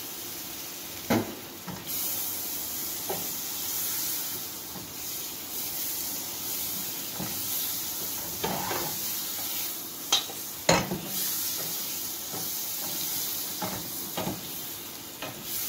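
Butter melting and sizzling in a hot frying pan while a wooden spoon stirs it, knocking against the pan several times. The sizzle gets louder about two seconds in.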